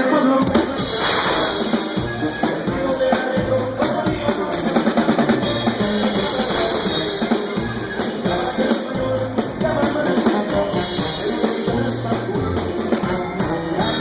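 Band playing an instrumental passage of a song live, led by a full drum kit with kick drum, snare and rimshots driving a steady beat, with no singing.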